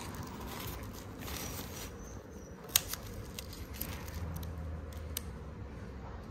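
Scattered sharp clicks and light scraping from pedicure tools at work on a foot, the loudest click a little under three seconds in, over a low steady hum.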